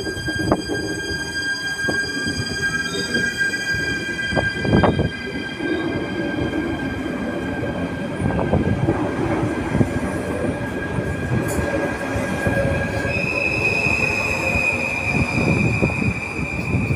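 Electric multiple-unit passenger trains moving slowly along a station platform: a steady high-pitched wheel squeal over the running rumble, with a few sharp knocks from wheels over rail joints. About 13 s in, the squeal jumps to a higher pitch.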